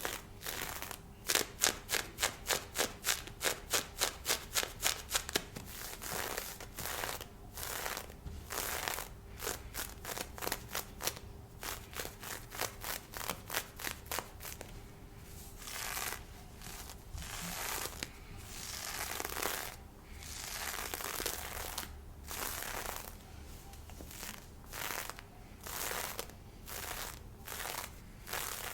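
Fingers scratching and rubbing lace fishnet stockings close to a binaural microphone. First comes a run of quick, even strokes, about three a second, then slower separate strokes and a few longer swishes.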